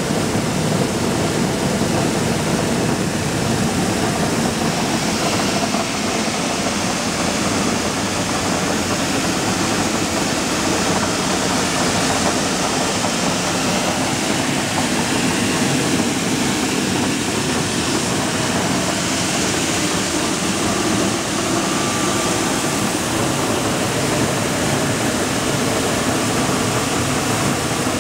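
Wheat flour mill that separates bran from the kernel, driven by an electric motor, running steadily: an even, unbroken mechanical noise as grain and flour pass through it.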